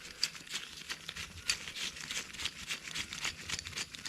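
Rapid, irregular light clicks and scrapes of metal hand work: a thread tap and small parts on a cast aluminium clutch part.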